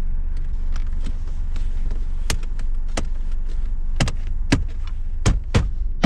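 Hard plastic clicks and knocks as the shift boot's trim surround is pressed down and snapped into its tabs in the centre console, about six sharp clicks in the second half, over a steady low hum.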